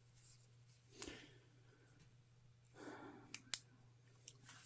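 Near silence over a low steady hum, with quiet handling of a small aluminium flashlight: faint rustling twice and two sharp clicks about three and a half seconds in.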